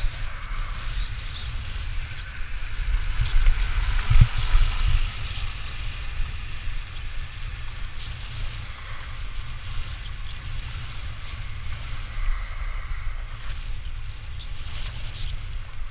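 Wind buffeting the microphone of a moving camera, a steady low rumble over an even hiss of road noise, with a louder gust about four seconds in.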